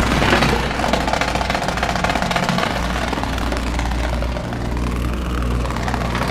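A steady, dense low rumbling drone with a fast flutter running through it: a horror sound effect.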